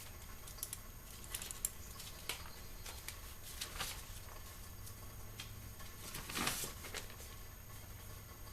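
Scattered small clicks and scrapes of hands working at a plastic interior door trim panel to unclip it, with one longer scrape about six and a half seconds in.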